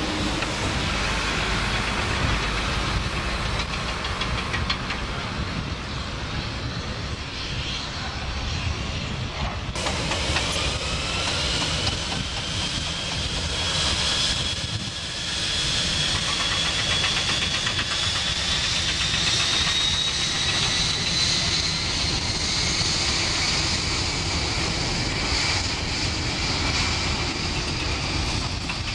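Britten-Norman Islander's twin piston engines and propellers running as the small aircraft lands. About ten seconds in the sound changes suddenly to a large jet airliner's engines: a steady hiss under a high whine that rises slowly over the next ten seconds.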